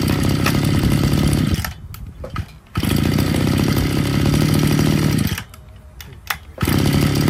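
Mitsubishi TL261 26cc two-stroke brush cutter engine revved up three times, dropping back to a quieter idle in between. It runs extremely smooth, with the earlier noise gone.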